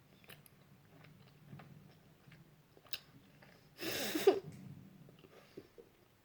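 Someone chewing a gummy Krabby Patty candy, soft wet mouth clicks close to the microphone, with one louder brief noisy burst about four seconds in.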